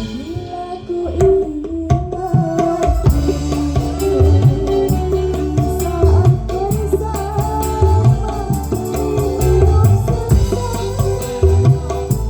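Dangdut music with a tabla-like hand-drum pattern whose low strokes bend upward in pitch about once a second, under a sustained melody line.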